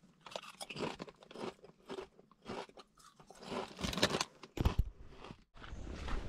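Potato chips being crunched and chewed in irregular crisp bites. The sound cuts off suddenly about five and a half seconds in.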